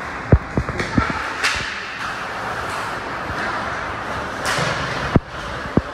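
Short dull thumps, four in quick succession in the first second and two more near the end, over steady background noise.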